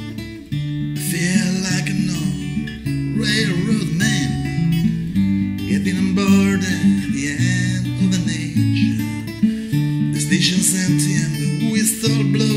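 Acoustic guitar played in a steady strummed pattern during an instrumental break in the song, with a high, wavering melody line coming and going above it several times.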